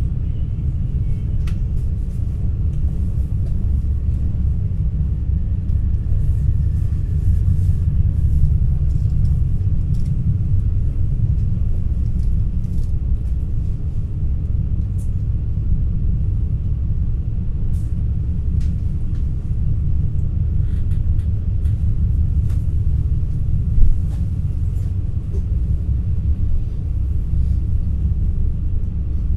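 Steady low rumble of an NS ICNG electric intercity train in motion, heard from inside the carriage. Faint scattered clicks run through it, and there is one sharp knock late on.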